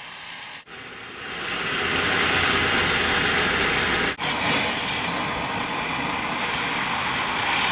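Gas torch flame hissing steadily against a cast iron anvil, preheating it so the hardfacing weld won't crack. The hiss gets louder about a second in and drops out briefly twice.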